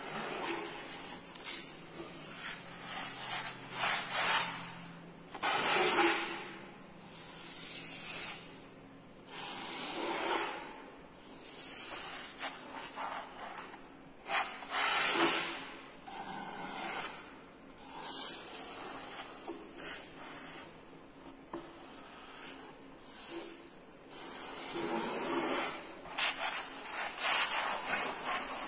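Paint being dragged across a large flat board with a painting tool, in repeated scraping strokes. Each stroke is a short rush of scratchy noise, coming at uneven gaps of one to a few seconds.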